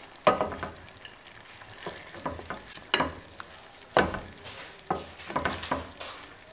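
Plastic serving spoon scraping and knocking in a nonstick pan of chicken adobo as pieces are scooped out: about eight short knocks and scrapes over a steady faint sizzle from the pan.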